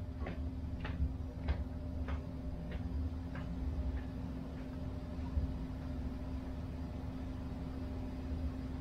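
Footsteps walking away across a concrete floor, about one step every 0.6 seconds, growing fainter and dying out about four seconds in, over a steady low hum.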